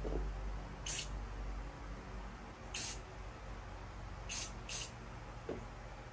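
Aerosol rattle can of camo spray paint giving four short spritzes, the first three a second or two apart and the last two close together.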